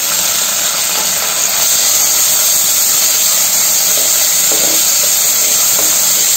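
Curry leaves and balloon vine (mudakathan keerai) leaves sizzling steadily in hot oil in a clay pot, hissing as they give off steam, a little louder about a second and a half in.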